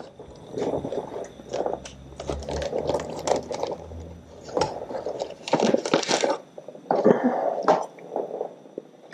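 Plastic parts bag crinkling and rustling in the hands in irregular bursts as it is opened and handled.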